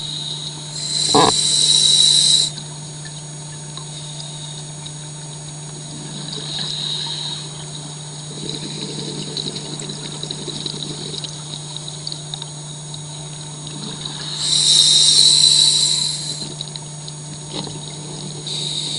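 Underwater sound of scuba diving: exhaled bubbles from a regulator rush out twice, about a second in and again about three-quarters of the way through, with a fainter one in between. Under them runs a steady low hum from the suction dredge at work.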